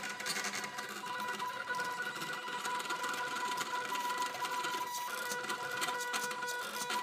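Homemade pen plotter built from CD-ROM drive mechanisms running a drawing test: the small stepper motors that drive the drive sleds whine at a steady pitch, with a rapid fine ticking, as they move the pen over the paper.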